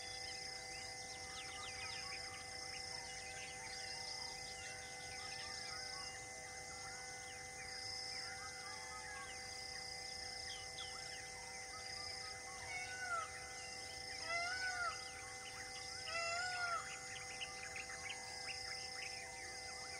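Wild birds calling with many short chirps and whistles, over an insect call that pulses about once a second. Several louder arched calls come in the second half, and a faint steady hum of held tones runs underneath.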